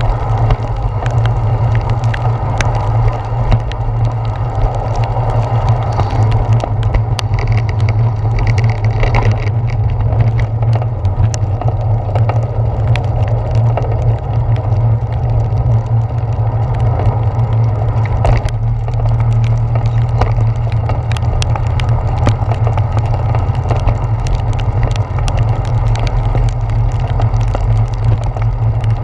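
A bicycle riding on wet pavement in heavy rain, heard through a handlebar-mounted action camera: a steady low rumble of wind and road vibration, with scattered sharp ticks throughout.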